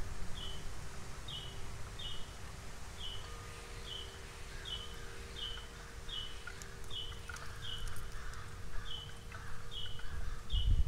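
Outdoor backyard ambience: an animal's short high chirp repeats evenly about one and a half times a second, over a low rumble.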